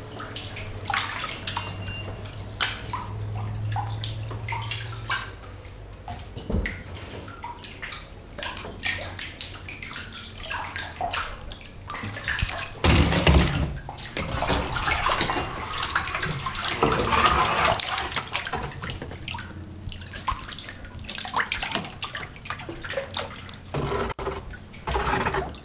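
Water splashing and lapping against rock as a kayak paddle dips and strokes through a narrow cave passage, with scattered drips and slaps. About halfway through there is a dull low thump, the loudest moment.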